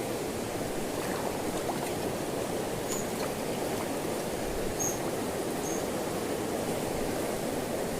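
Fast-flowing river water rushing steadily, with a few short high chirps about three and five seconds in.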